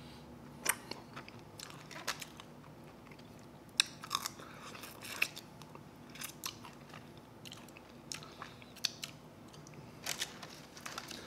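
A person chewing and biting bone-in chicken wings, with irregular crisp crunches and sharp clicks.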